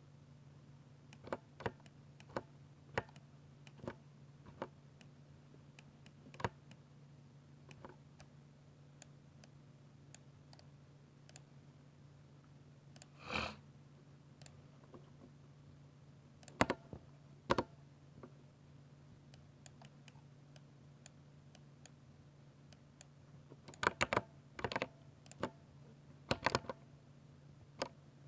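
60% mechanical keyboard with Ducky silver switches being typed on: scattered single keystrokes, one longer, softer key sound about halfway, and a quick run of presses near the end.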